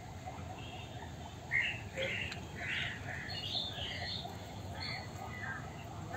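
Birds calling in the background: a scatter of short chirps and calls, the loudest about a second and a half to three seconds in, over a faint steady low background noise.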